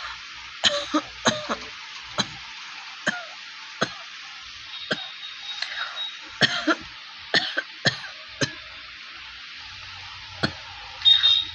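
A person coughing again and again in short, dry, unproductive coughs, some single and some in quick clusters at irregular intervals, over a steady hiss. It is a genuine dry cough, not a phlegmy cough from a cold.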